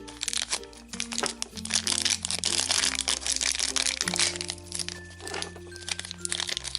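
A plastic blind bag crinkling as it is torn open and handled, over background music with held low notes.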